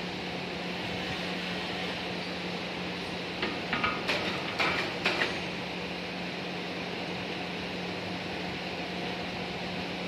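Steady machine-shop hum, with a cluster of sharp metallic clanks and knocks with a short ring, from about three and a half to five seconds in, as a heavy finned electric motor housing is fitted onto the lathe's chuck.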